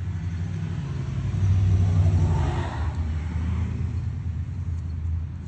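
A vehicle engine running steadily, with a low hum that swells louder for about a second and a half around two seconds in.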